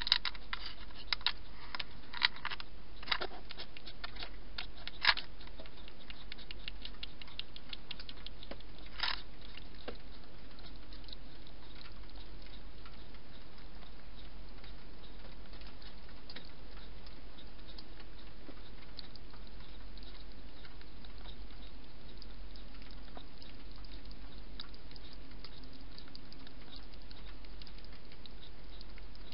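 European hedgehog drinking from a water bowl: fine, rapid clicking ticks of lapping, with a few louder clicks in the first five seconds and one more about nine seconds in, over a steady hiss.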